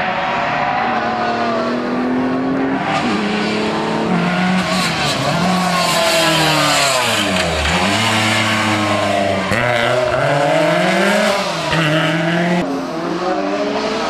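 Historic rally car engine at full throttle on a special stage, pitch climbing and dropping again and again as it accelerates, shifts and lifts off for the bends, passing close about seven and a half seconds in.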